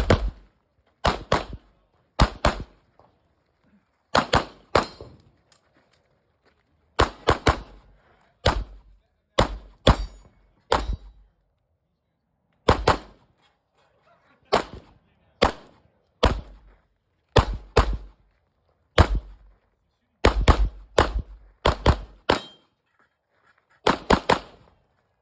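Pistol gunfire during a practical-shooting stage: rapid shots fired mostly in quick pairs (double taps), separated by short pauses between target arrays, with a fast string of shots a little past the middle.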